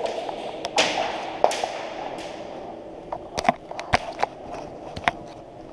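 Scattered sharp cracks of airsoft fire and BBs striking cover, irregularly spaced, with a quick cluster about halfway. The cracks echo off the hard walls of a large concrete hall.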